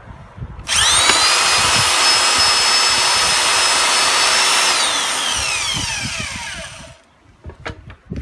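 Electric facing tool (pipe-end planer) of a manual butt fusion welding machine switching on about a second in and quickly spinning up to a steady high whine as its blades shave the ends of the clamped plastic pipes. It is switched off near the end and winds down, the pitch falling until it stops.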